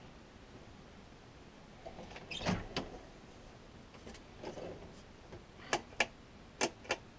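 Louvered closet door sliding along its track, followed by four sharp clicks in two quick pairs near the end.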